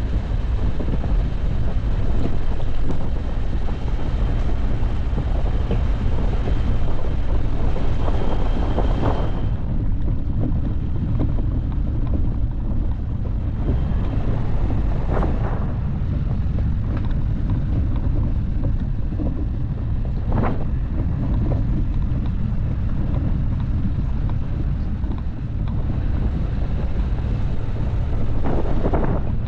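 Dacia Duster driving off-road: a steady low rumble of engine and tyres with wind buffeting the microphone, and a few short knocks along the way.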